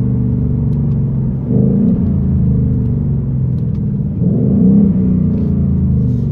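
A 2019 Ford Mustang GT's 5.0-litre V8 heard from inside the cabin as the 10-speed automatic downshifts while slowing. Twice, about one and a half and four and a half seconds in, the engine revs briefly rise and fall as the transmission blips the throttle to match revs on the downshift.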